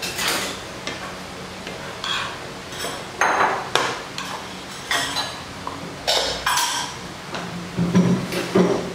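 A metal spoon scraping and clinking against a nonstick frying pan, with a wooden utensil, as rice and vegetables are stirred together; irregular scrapes and clinks, busiest near the end.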